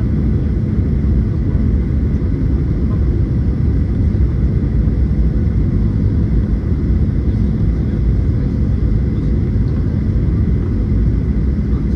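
Steady low rumble of a Boeing 737's jet engines and rushing air, heard from inside the cabin over the wing on final approach, with a faint steady whine above it.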